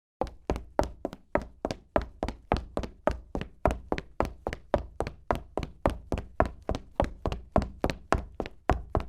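A woman's footsteps: quick, evenly paced steps on a hard floor, about three and a half a second, starting a moment in after silence.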